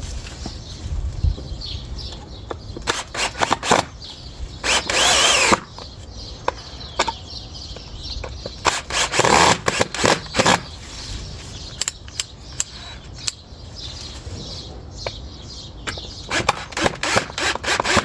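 Power drill driving screws into a wooden stump in several short bursts, the longest about five seconds in, with sharp clicks and knocks between the runs.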